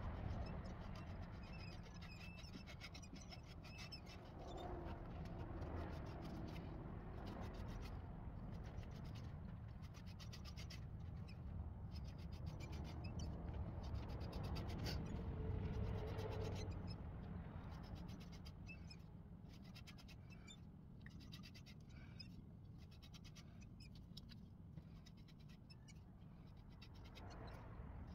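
Wood lathe running with a gloved hand rubbing a pad of shellac over the inside of a walnut bowl: a quiet steady motor hum under soft, scratchy rubbing.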